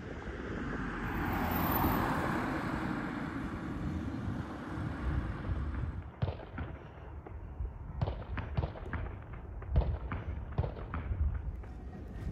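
A vehicle passes close by, its noise swelling over the first two seconds and fading away. Then footsteps on pavement at a walking pace, a string of sharp steps.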